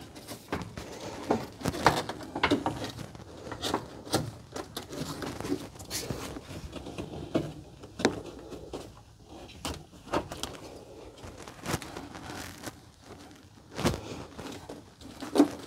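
Irregular knocks, clicks and rubbing as a radiator cooling-fan assembly is handled and set into place against the radiator. The louder knocks come at a few scattered moments, with lighter rustling and scraping between them.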